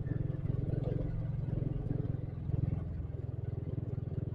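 Engine of a slow-moving road vehicle running steadily at low speed, a continuous low throb of fast even pulses.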